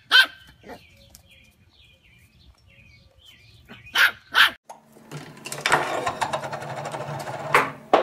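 Puppy barking in short, sharp yaps: one at the start and two more about four seconds in, with faint short chirps between. About five seconds in a different sound takes over: a steady rustling clatter over a low hum, with a sharp click near the end.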